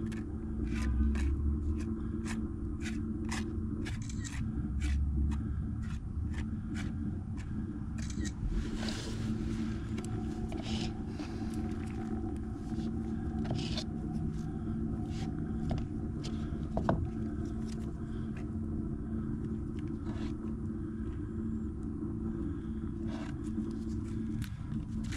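A steady low machine hum with many short, irregular scrapes and clicks over it.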